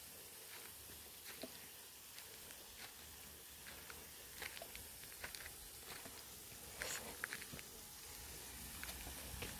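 Faint outdoor ambience: a steady soft hiss with scattered light clicks and crackles, a short cluster of them about seven seconds in.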